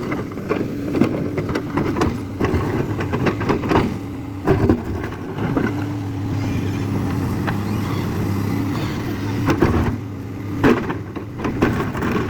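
A JCB excavator's diesel engine running steadily, with repeated short knocks and clanks throughout.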